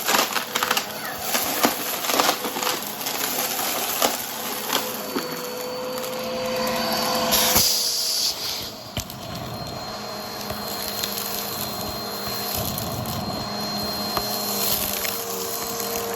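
Upright vacuum cleaner with a spinning brushroll running over carpet, sucking up a crunchy mess: many sharp cracks and clicks of debris over the motor's noise in the first half, a loud surge just before the middle, then a steadier run with a thin high whine.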